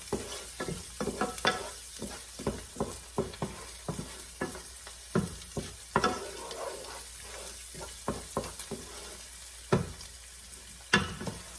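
Onion and spice masala frying in oil in a pan with no water added, sizzling steadily, while a spoon scrapes and knocks against the pan as it is stirred. There are two louder knocks near the end.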